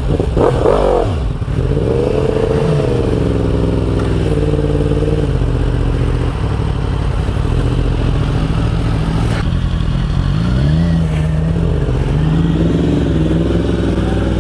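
Yamaha R1 inline-four with its catalytic converter removed, pulling hard under the rider. The engine note climbs, holds and drops back several times as the revs rise and fall.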